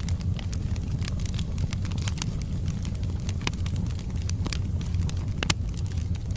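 Wood fire burning in a fireplace: a steady low rumble of flames with irregular crackles and pops from the burning logs, a sharper pop about five and a half seconds in.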